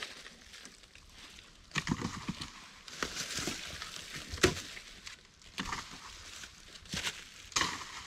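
Irregular crunches, rustles and knocks, with a sharp knock about four and a half seconds in as the loudest.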